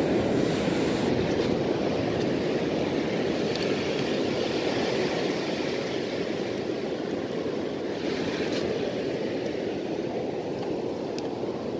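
Shallow surf washing up and over a sandy beach: a steady rush of foaming water that slowly eases off.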